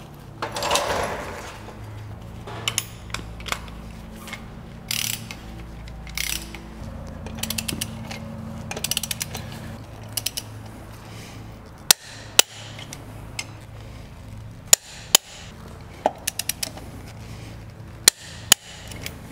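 Hand socket ratchet clicking in short runs as wheel bolts on a compact tractor's wheel are turned, with several sharp single metal clicks later on. Near the start, a louder clatter comes from the floor jack as its handle is worked.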